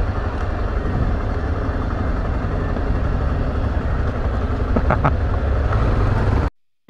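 Motorcycle engines running as the bikes roll slowly, under a heavy steady low rumble of wind on the helmet-mounted microphone. The sound cuts off abruptly about six and a half seconds in.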